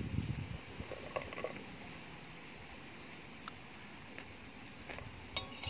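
Metal spoon clicking lightly against a stainless steel bowl of salad a few times, then a sharper clink with a brief metallic ring near the end. Faint short bird chirps in the background.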